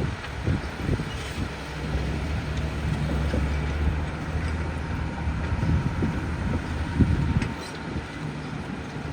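Diesel engine of heavy earthmoving machinery running, a steady low drone that fades for a couple of seconds about six and a half seconds in, with irregular low rumbles and knocks.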